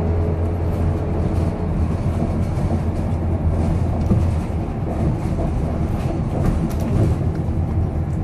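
Scania K230UB bus's five-cylinder diesel engine running under way, heard from inside the saloon as a steady low drone over road noise.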